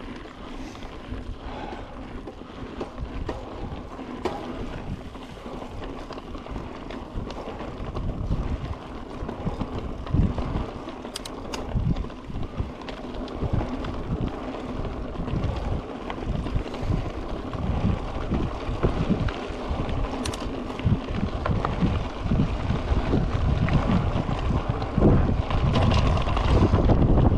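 Wind buffeting the camera microphone while riding a Yeti SB5 mountain bike on a trail, getting louder in the second half, with a few sharp clicks from the bike.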